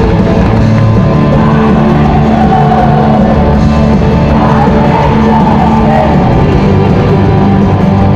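Live rock band playing loudly and steadily, with a sung vocal line over the full band.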